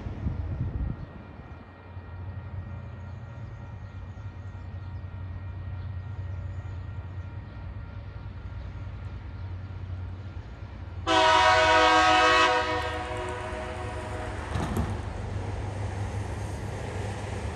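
TasRail TR class diesel locomotive approaching with a steady low engine rumble. About two-thirds of the way through it sounds one horn blast of about a second and a half, several notes at once, which echoes as it fades.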